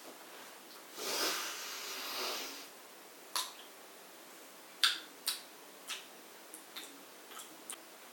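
A rustle lasting about a second and a half, then a scatter of light clicks and taps, about eight in all.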